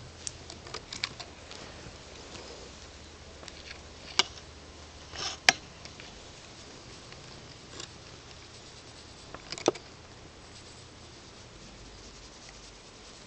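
A black kitten pawing and scrambling on a lap: scattered scratches and rustles of claws and paws on clothing, with a few sharp knocks, the loudest about five and a half seconds in and others about four and nearly ten seconds in.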